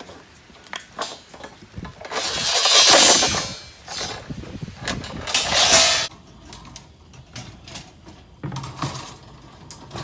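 Steel reinforcing bar being worked by hand: two harsh metal scraping sounds of a second or so each, followed by lighter clicks and rattles of bars knocking together.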